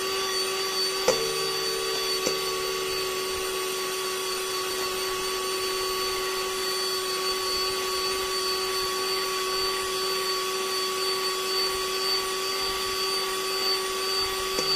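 Scarlett electric hand mixer running at a steady speed, its beaters whisking a foamy mixture in a bowl, with a steady hum. Two sharp knocks come about one and two seconds in.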